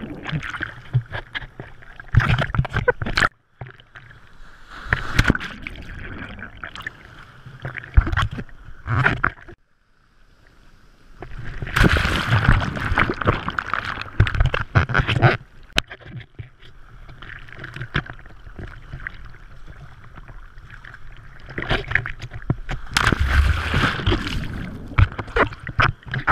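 Surf water churning and splashing over a camera in the waves, in uneven rushes of noise. It drops to a brief near-quiet lull about ten seconds in, and the loudest rushes come around the middle and again near the end.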